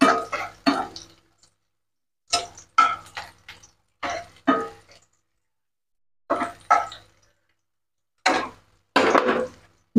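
Wooden spatula stirring and scraping sliced chillies and garlic through hot oil in a non-stick wok, in short clusters of strokes with pauses between, the food sizzling lightly as it is moved.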